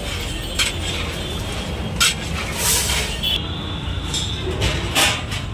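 Steady low rumble of street noise with three sharp knocks, one early, one about two seconds in and one near the end, and a brief hiss in between.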